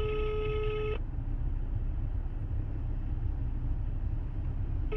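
Telephone ringback tone through a phone's speaker: one steady beep about a second long, a four-second pause, then the next beep near the end, the line ringing while the call waits to be answered. A low steady rumble runs underneath.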